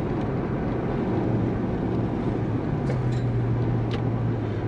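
Cabin sound of a Toyota Celsior on the move: its 1UZ-FE V8 engine and road noise make a steady low drone. The engine note becomes stronger and a little higher about three seconds in.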